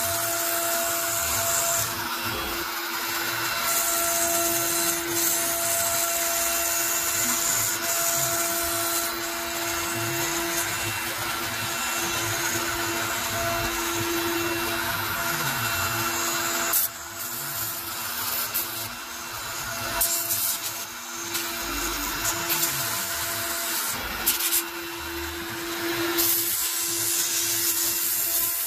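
CNC router spindle running at 18,000 rpm while a 1/8-inch single-flute upcut spiral bit cuts 3/8-inch cast acrylic: a steady hum over a hissing cutting noise. The cutting noise drops and wavers for several seconds about two-thirds of the way through, then steadies again.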